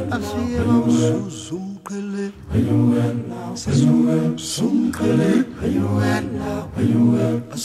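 A cappella group singing in harmony, several voices together in short phrases that repeat about once a second.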